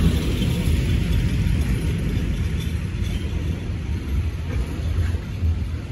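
Tank wagons of a freight train rolling past, a steady low rumble of steel wheels on the rails.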